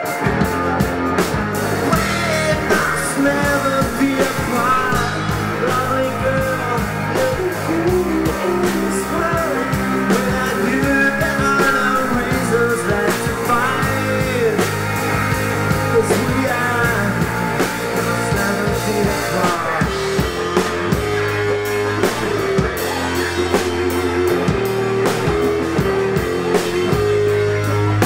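Live rock band playing: electric guitars, bass guitar and drum kit. A lead melody bends up and down in pitch over the band for most of the first two-thirds; around twenty seconds in it gives way to a steadier repeated figure.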